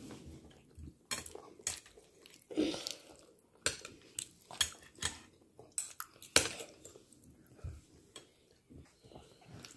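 Metal spoon and fork clinking and scraping against a ceramic plate while scooping up rice and squash, in irregular sharp clinks.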